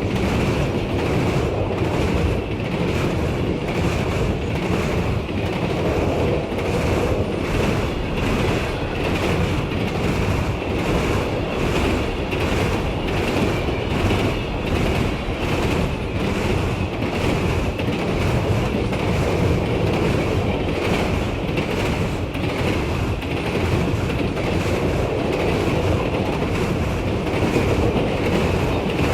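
Train cars rolling past close by, a steady heavy rumble with an even rhythm of wheel clacks over the rail joints.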